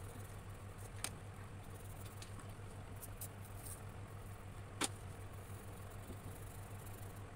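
Faint scratching of coloured pencils shading on paper over a steady low hum. There are a few sharp clicks: one about a second in, a cluster of small ticks around three seconds, and the loudest just before five seconds.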